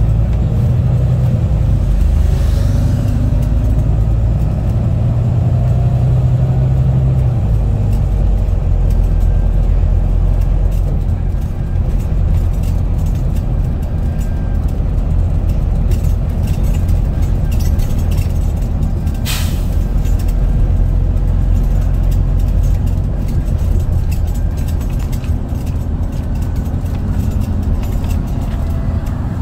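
Wright Gemini 2 double-decker bus driving along, its engine drone and road noise heard from inside the passenger saloon, with some changes in engine pitch in the first few seconds. A brief sharp noise sounds about two-thirds of the way through.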